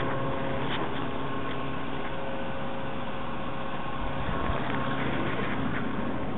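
Steady machine hum with a few constant tones over a noise haze, unchanging throughout.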